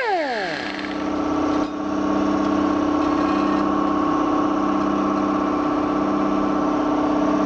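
Pneumatic straight die grinder spinning down after the trigger is released, its high whine falling steeply in pitch within the first second. A steady, fast-pulsing mechanical hum then carries on, with a click about 1.7 s in.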